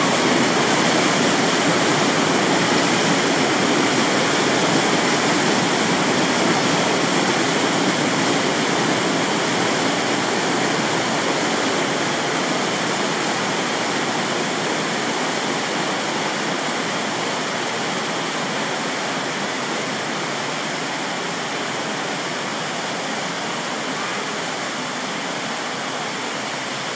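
Simulated flash flood: water rushing down an artificial canyon channel, a steady loud rush that slowly fades.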